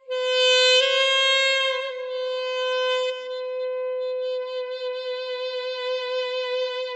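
Background music: a solo wind instrument holding one long note with a slight waver, loudest in its first two seconds.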